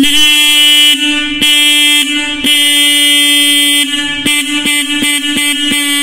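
Motorcycle electric disc horn, wired straight to a battery and sounded by holding a supply wire to its terminal by hand, blaring one steady note. This is its sixth tone setting, with washers and a plate refitted under the cover to change its sound. The note starts suddenly and cuts out briefly several times, more often in the second half.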